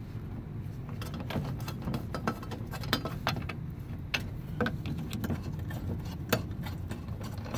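Ratchet wrench with a 10 mm socket clicking in short, irregular runs on the wiper motor mount bolts, over a steady low hum.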